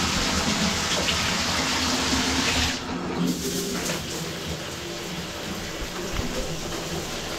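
Bathtub faucet running into the tub, the water going down the freshly cleared drain without backing up. The tap is shut off a little under three seconds in, leaving a quieter trickle and drips.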